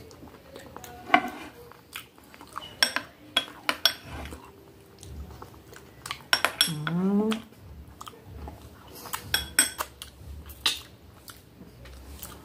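Metal spoon clicking and scraping against a glass dessert bowl while hard, icy dessert is chewed, with a brief rising hum from the eater about seven seconds in.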